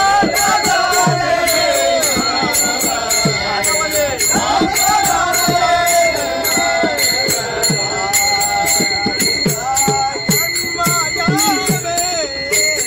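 Marathi Warkari bhajan sung in chorus by a group of men, with brass taal hand cymbals struck in a fast, steady rhythm and ringing under the voices.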